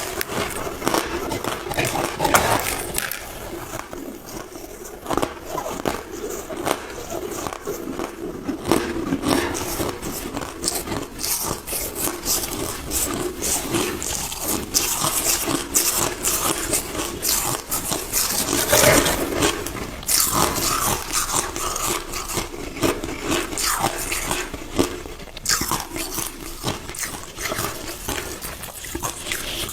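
Crushed ice being chewed close to the microphone: a continuous run of crisp crunches and crackles as the ice breaks between the teeth.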